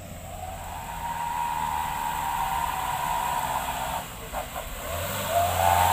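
Truck engine running hard, a high whine over a hiss that grows louder as the truck approaches. The sound dips briefly about four seconds in, and the whine climbs again near the end.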